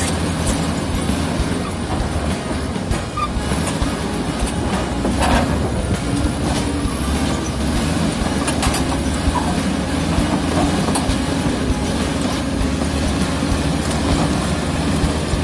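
Komatsu D85E-SS crawler bulldozer pushing: its diesel engine running steadily under load, with short clanks from the steel tracks now and then.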